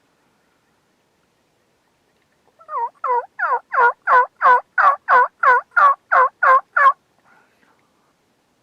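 A run of about a dozen wild turkey yelps, evenly spaced at roughly three a second, each note dropping in pitch; it starts a little way in, builds to full loudness within the first few notes, and stops abruptly.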